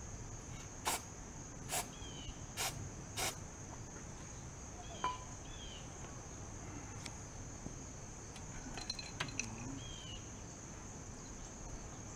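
Four short squirts of aerosol starter fluid sprayed into the dry carburetors to help a long-dormant engine fire, within the first few seconds. A steady high chirring of crickets runs underneath, with a few faint bird chirps.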